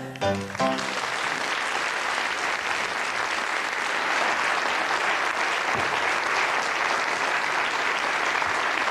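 Studio audience applauding steadily, right after two short closing notes of music in the first second.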